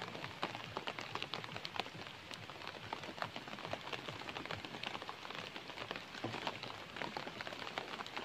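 Rain falling on leaves and ground: a steady, dense crackle of many small drop ticks.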